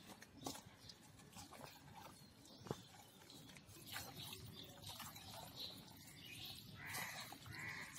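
Soft wet squelching and scattered clicks of a hand squeezing and turning raw mutton pieces coated in spices, onion and oil against a metal pot. Faint calls are heard in the background near the end.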